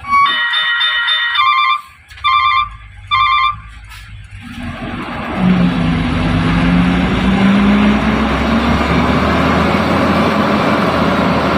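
Sand truck's multi-tone 'telolet Basuri' musical air horn: one long chord-like blast, then two short blasts. About four seconds in, the truck's engine comes up loud and runs steadily, its pitch climbing a little.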